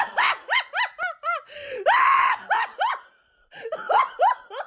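Mickey Mouse's high falsetto cartoon laugh: a quick run of short "ha" syllables, a longer held cry about two seconds in, a brief pause, then more rapid laughing.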